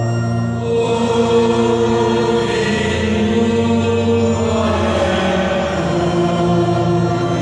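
Church music of long held chords with choir-like singing voices. The chord changes about a second in and again near five seconds.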